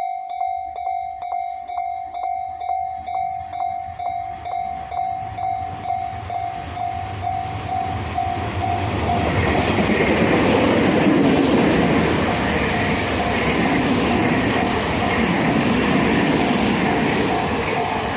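Japanese level-crossing warning bell ringing a steady repeating clang, about three strikes a second. About eight seconds in, a train arrives and runs over the crossing; its running noise becomes the loudest sound and all but covers the bell, which goes on underneath.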